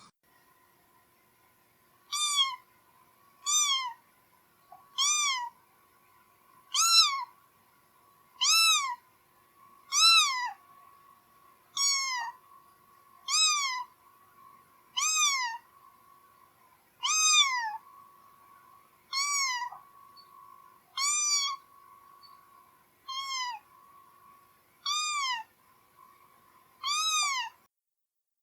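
A domestic cat meowing over and over: about fifteen short meows, each rising then falling in pitch, roughly one every two seconds.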